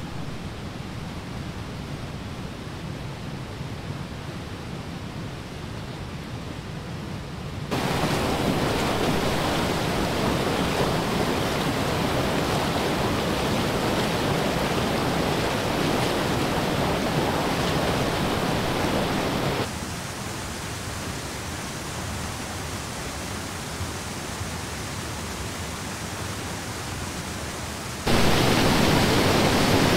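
Steady rush of water from a small stream tumbling over rapids. The level jumps abruptly, louder about eight seconds in, quieter about twenty seconds in, and loudest near the end.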